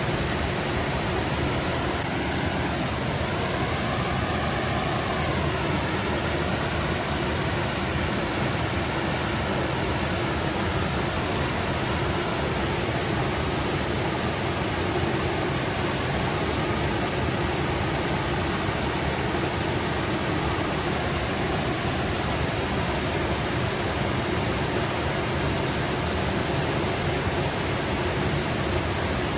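Forest brook babbling: a steady, even rush of running water.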